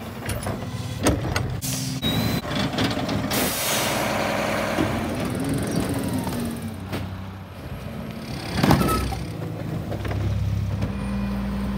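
Curbside garbage collection: truck and utility-vehicle engines running, carts and cans clattering as they are tipped, and sharp bursts of air hiss, the loudest about nine seconds in.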